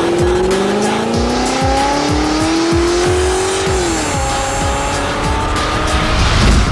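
Intro music with a steady beat, layered with a car engine accelerating. Its pitch climbs for about four seconds, drops as if shifting gear, then climbs again.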